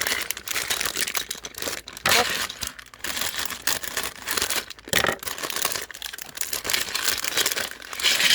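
Plastic Lego parts bag being torn open and crinkled, with loose bricks rattling inside it; the loudest rips come about two and five seconds in.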